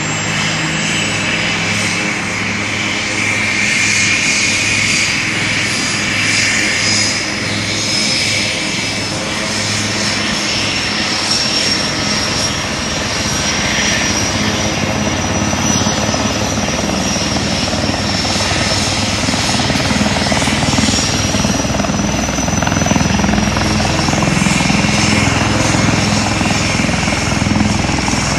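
Turbine helicopter running on the ground, the HAL Light Combat Helicopter's twin turboshaft engines giving a steady high whine over a dense rumble, slowly building a little louder toward the end.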